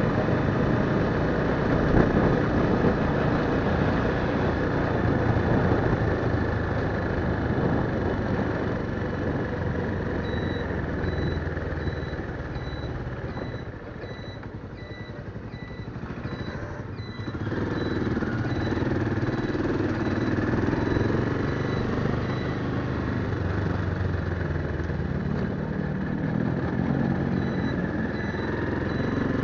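Small motorcycle engine running under way, with wind rushing over the microphone. The engine quietens about halfway through as the bike slows at a junction, then picks up again as it accelerates away. A faint high beep repeats about twice a second through much of the second half.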